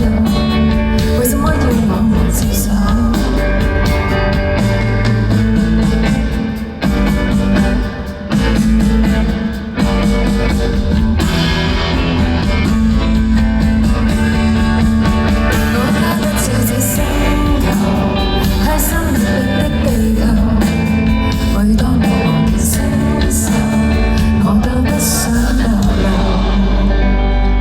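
A live band playing a song, with singing over guitar, bass and drums.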